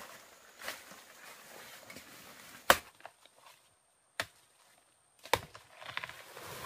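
A blade chopping into wood: four single strokes about one to two seconds apart, the loudest near the middle.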